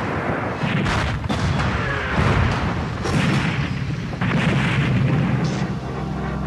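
A string of heavy booms from explosions, about five in quick succession, each followed by a low rumble: ordnance detonating on impact after a weapons release. Music comes in near the end.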